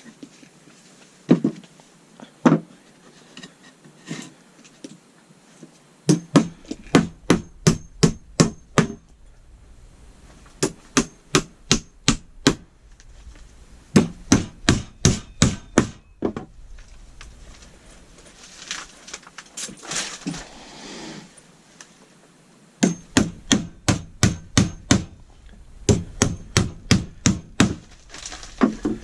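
A hammer driving nails into wood, in quick runs of about five strikes a second, with pauses between runs. There is a stretch of scraping noise in the middle.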